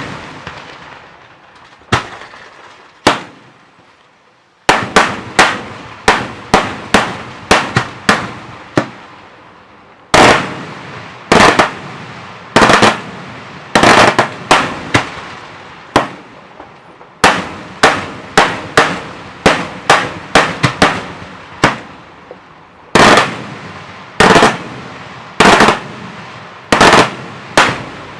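Daytime fireworks display: a fast, irregular series of loud shell bursts and bangs, each echoing briefly. After a short lull a few seconds in, the bangs come in quick clusters, roughly one or two a second.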